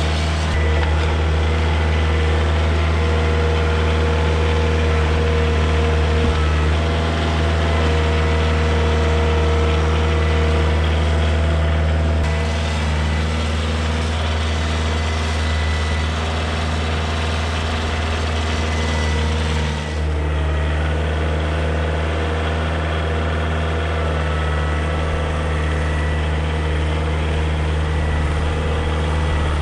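Kioti DK40se compact tractor's diesel engine running steadily while the tractor works its front loader and grapple. The tone shifts slightly about two-thirds of the way through.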